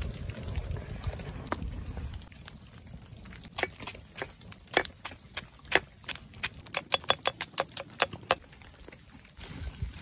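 A large knife chopping meat and onion on a flat stone slab: a run of sharp, irregular knocks as the blade strikes the stone, coming faster for a moment near the end.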